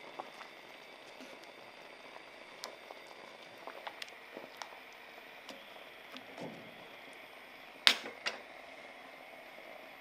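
Creamy sauce simmering around pork neck in an enamelled cast-iron pot, a steady low bubbling with scattered small pops, while a wooden spatula stirs and turns the meat. A sharp knock comes about eight seconds in, with a smaller one just after.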